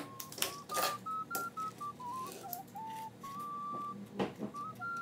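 A simple electronic tune of plain single beeping tones, one note at a time, stepping up and down in pitch. A few short rustling scrapes come near the start and about four seconds in, as crushed ramen is pressed into the crack of a rifle.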